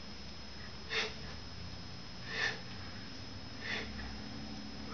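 A man's sharp breaths in rhythm with his push-ups: three short, forceful breaths about 1.3 seconds apart, one per repetition.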